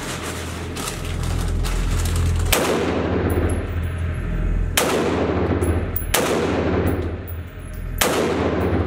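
Four single shots from a Beretta ARX 100 5.56 rifle, fired slowly and unevenly about one and a half to two and a half seconds apart. Each shot echoes off the walls of an indoor range.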